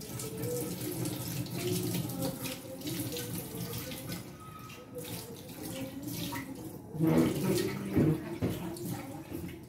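Water running steadily from a tap, with a couple of knocks near the end.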